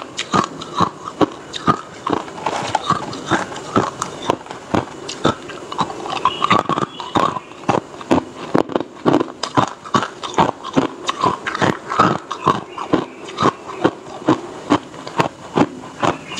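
A person chewing hard ice, with rapid repeated crunches of ice cracking between the teeth, about three a second, picked up close by a clip-on microphone.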